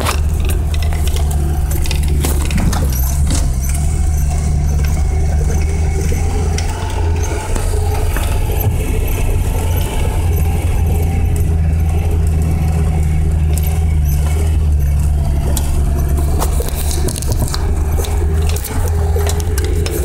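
Lada 2107's four-cylinder engine droning steadily under load, heard from inside the cabin on a rough dirt track. Short knocks and rattles from the car on the bumps come through. The engine note eases for a few seconds midway and then picks up again.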